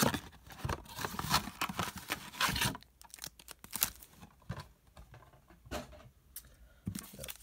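Foil-wrapped trading card packs and their cardboard blaster box being handled: crinkling and rustling with light taps and clicks, busy for the first few seconds, then sparser.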